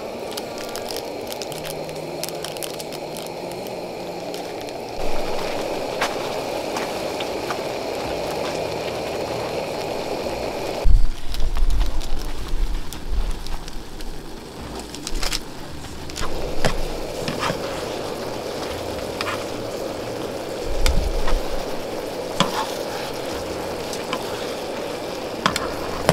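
Instant noodles simmering and sizzling in a little water in a pan over a camp gas stove, with scattered clicks and a few knocks as utensils and tongs scrape and tap the pan.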